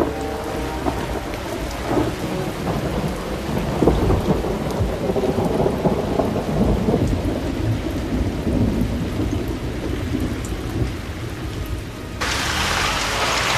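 Thunderstorm sound effect: thunder rumbling over rain, swelling and easing. About twelve seconds in it switches abruptly to a brighter, steady hiss of heavy rain.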